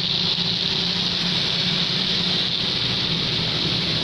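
Street traffic in light rain: a steady hiss of rain and tyres on the wet road over the low hum of passing motorcycle engines.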